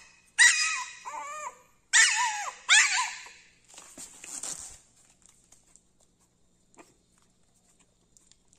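A 50-day-old Taiwanese native dog puppy giving a run of short, high-pitched yips and whines that bend up and down in pitch, four loud ones in the first three seconds, then a few fainter ones that die away about halfway through.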